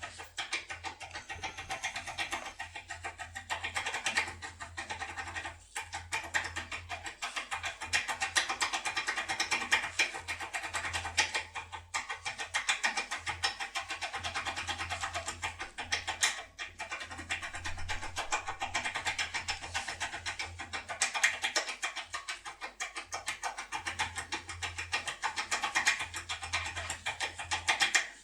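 Continuous fast scratching and clicking of a thin foil lock-pick tool being worked right and left and up and down inside an ASSA ABLOY cylinder lock, with a low hum coming and going.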